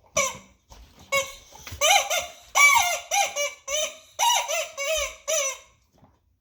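Rubber chicken squeaky toy squawking about ten times in quick succession as a boxer dog bites and squeezes it. Each squawk is short and bends in pitch.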